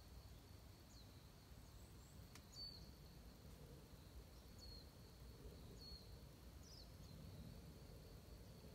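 Near silence: faint room tone with a faint steady high tone and a handful of very faint, short, high chirps that fall in pitch.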